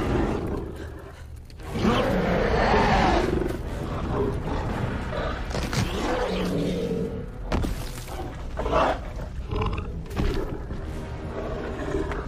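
Film sound design of a large dinosaur roaring and growling close by, over orchestral score.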